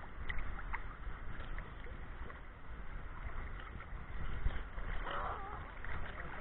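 Shallow seawater sloshing and lapping around a camera held at the waterline, with a low rumble and a few small splashes.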